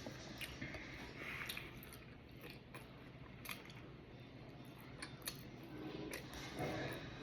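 A person chewing food close to the microphone, with scattered sharp mouth clicks and smacks.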